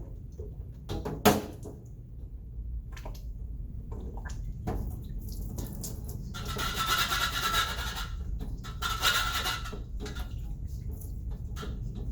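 Water sprayed onto a sieve in two hissing bursts of about a second and a half each, washing the retained material back into the sample pan. Before them come a few sharp knocks of the sieve and pan being handled, the loudest about a second in.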